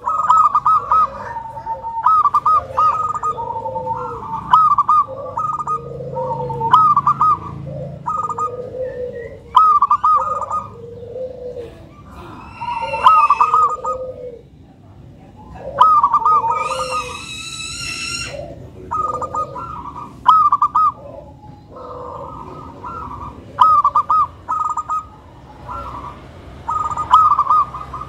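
Zebra dove (local perkutut) cooing over and over, a trilled call repeated every second or two. Around the middle, a higher, drawn-out call sounds twice, loudest the second time.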